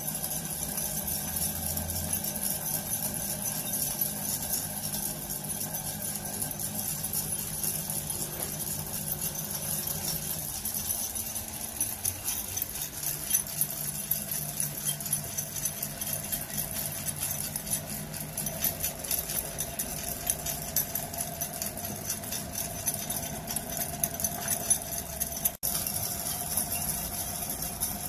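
Homemade rock tumbler turned by a drill press: small stones and a knife blade rattle and clink continuously inside the spinning drum over a steady motor hum.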